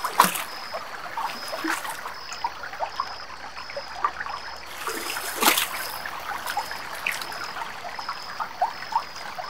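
Stream water trickling and dribbling, with many small drips and plops and two sharper splashes, one right at the start and one about five and a half seconds in. A faint high-pitched pulse repeats about twice a second throughout.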